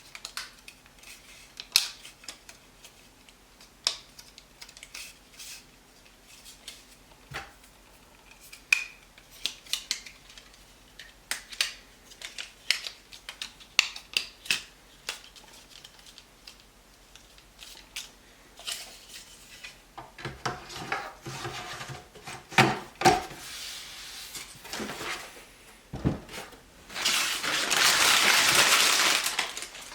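Hard drives and plastic NAS drive trays being handled: many scattered clicks, taps and light clatter of hard plastic and metal, busier in the last third. Near the end comes a couple of seconds of steady rubbing or rustling noise.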